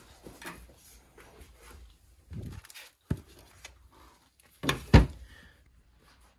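Knocks and thumps of things being handled at a small wooden cabinet and a hardcover picture book: a dull thump, then a sharp click, then two loud knocks in quick succession about five seconds in.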